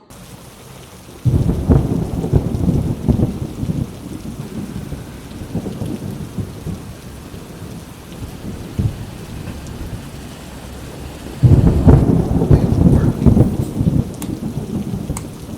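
Hurricane rainstorm: steady heavy rain hiss, broken by two loud low rumbling surges, one about a second in that fades over several seconds and another near the end.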